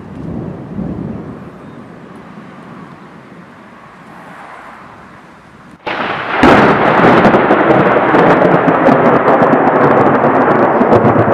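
Thunderstorm: a low rumble of thunder swells and fades for the first half. About six seconds in, a sudden very loud crash breaks in and carries on as dense, even noise with many sharp crackles.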